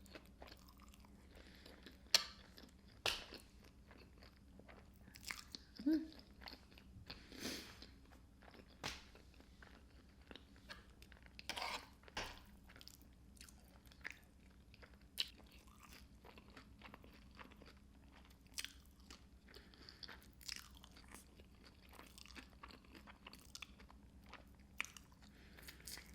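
A person chewing fettuccine alfredo topped with crushed hot Cheetos, close to the microphone: wet chewing with irregular crunches from the Cheeto crumbs.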